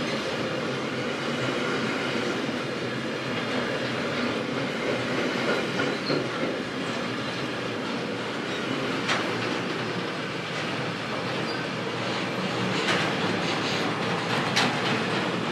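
Freight train of loaded double-deck car-transport wagons rolling past, a steady rumble and rattle of wheels on the rails. A few sharp clicks come through in the second half.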